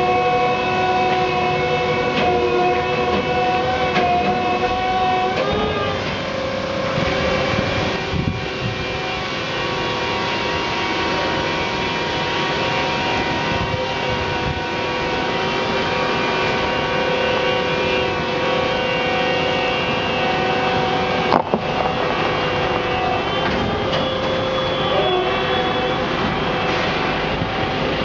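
Self-propelled heavy-load transport trolley, laden, driving slowly with a steady mechanical whine of several tones held together. The whine shifts in pitch about five seconds in and again near the end. There is a single sharp knock about three quarters of the way through.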